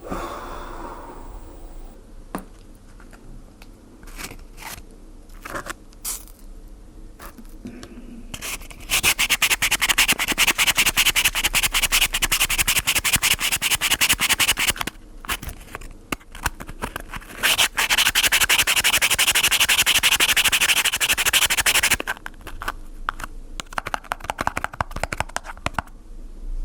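Dense, fast crackling sizzle in two long stretches, one of about six seconds and one of about four seconds, with scattered single crackles before, between and after them.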